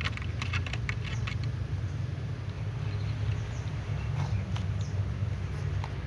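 A steady low rumble, with a quick run of small clicks and ticks in the first second and a half and a few faint high chirps later on.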